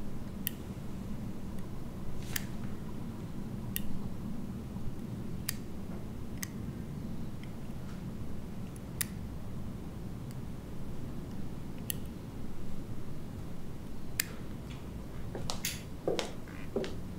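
Metal flip-top lighter being clicked open and shut, single sharp metallic clicks at uneven gaps of one to three seconds, over a steady low hum. Near the end comes a short squeak.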